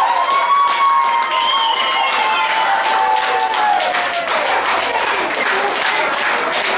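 Spectators cheering and clapping for a goal, with long high held shouts that slowly fall in pitch and die away about four seconds in, and steady clapping throughout.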